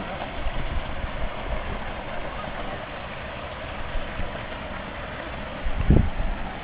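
Steady rush of a waterfall, with an uneven low rumble underneath and a brief low thump near the end.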